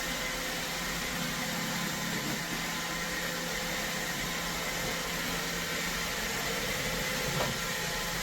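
iRobot Roomba Combo robot vacuum running: a steady whirring hum with a few constant tones, and a faint tap about seven seconds in.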